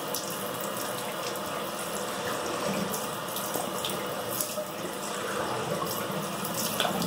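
Bathroom tap running steadily into the sink while water is scooped in cupped hands and splashed onto the face, with a few short splashes along the way.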